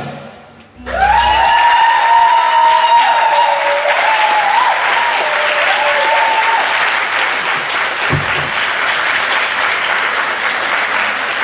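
Audience applauding, the clapping starting about a second in. One high voice holds a long, wavering cheer over the clapping for about five seconds.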